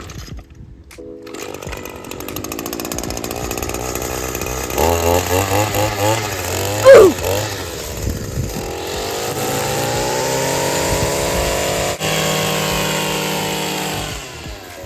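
Honda twin-blade walk-behind lawn mower engine running steadily while cutting grass, with one brief, loud, sharp sound about halfway through.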